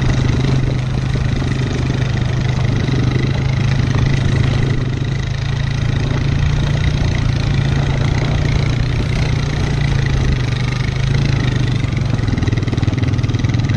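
Four-wheeler (ATV) engine running steadily with no revving, a constant drone, while it tows a dirt bike on a strap.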